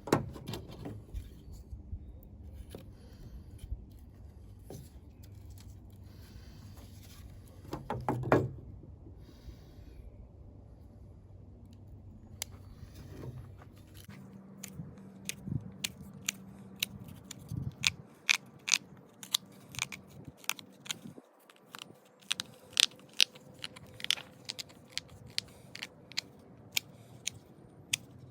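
Victorinox Fieldmaster Swiss Army knife cutting into a dry, well-degraded branch: crunching, scraping cuts with many sharp, irregular cracks in the second half.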